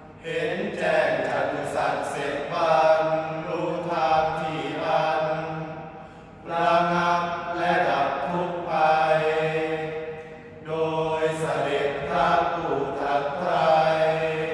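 A group of young men chanting Sarabhanya, the melodic Thai Buddhist chant, in unison. The chant runs in long drawn-out phrases, with short pauses for breath about six and ten seconds in.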